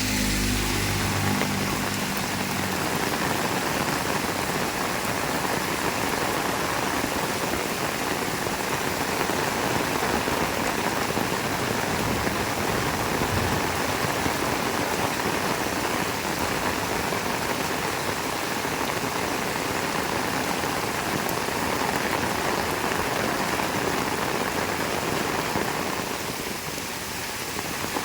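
Heavy rain falling steadily, an even downpour hiss. A vehicle engine's low hum fades out about a second in.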